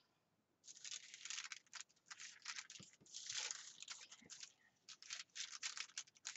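Sticker sheets rustling and crinkling as they are handled, in a run of short scratchy bursts that begins about half a second in.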